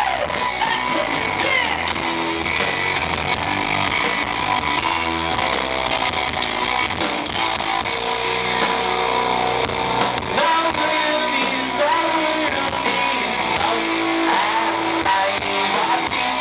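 Live band music with singing over strummed guitar, recorded heavily distorted.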